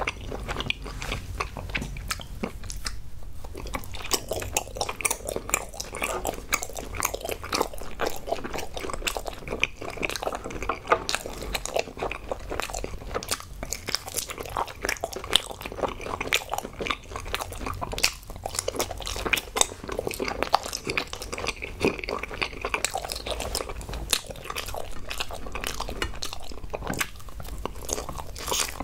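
Close-miked biting and chewing of round gummy jelly candies: a dense, unbroken run of sharp little clicks and wet mouth sounds.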